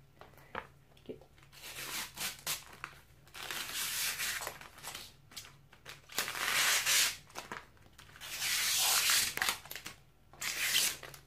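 A thin protective plastic film is peeled off the surface of an LED light pad and handled. It makes a crackling, ripping rustle in several stretches of a second or two, the loudest about six and nine seconds in.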